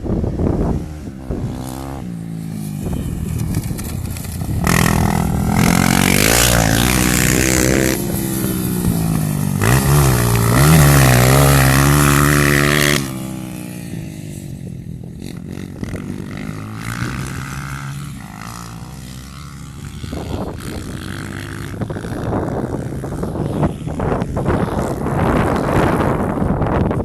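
Single-cylinder four-stroke dirt bike engines running under throttle, the pitch rising and falling through the gears. The engine is loudest from about five to thirteen seconds in, then drops off suddenly to a quieter run with wind noise on the microphone, and it builds again near the end.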